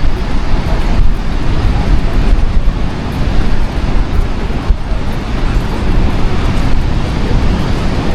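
Wind buffeting the camera's microphone: a loud, steady, fluctuating low rumble.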